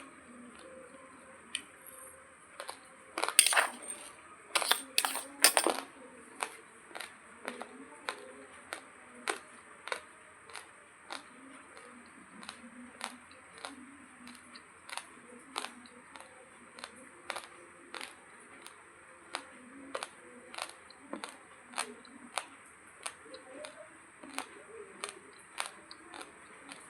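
Uncooked long-grain basmati rice being crunched between the teeth: sharp, crisp cracks of the hard grains breaking. There is a loud flurry a few seconds in, then a steady chewing rhythm of about two cracks a second.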